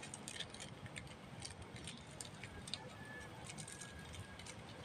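Scattered light clicks and ticks, several a second, over a faint steady outdoor background; a faint thin whistle is held briefly twice near the middle.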